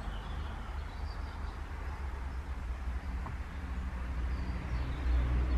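Low steady rumble, swelling near the end, with a few faint bird chirps.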